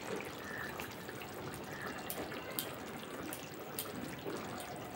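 Rui fish korma gravy simmering in a pan: a quiet, steady bubbling hiss with scattered small pops.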